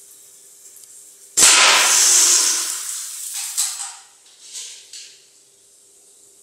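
A single shot from a suppressed Crosman 2240 .22 CO2 pistol, with its pellet striking a water-filled plastic soda bottle, about a second and a half in. A hiss follows and fades over about two seconds, then a few shorter bursts of noise.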